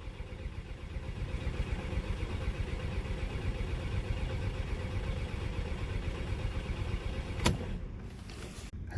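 Volkswagen CC engine being cranked by the starter, turning over fast and evenly without catching, with popping from the exhaust at the back. About seven and a half seconds in, the cranking stops with a sharp click.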